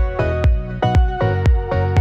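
Background electronic music with a steady beat of about two kick-drum hits a second under sustained synth tones.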